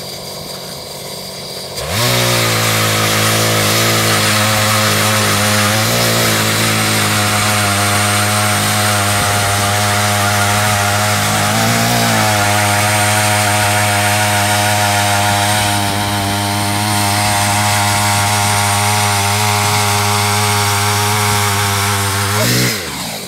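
Ice auger's small engine revving up about two seconds in and running at full throttle as the auger bores through lake ice. Its pitch sags briefly twice under load, and it drops off near the end.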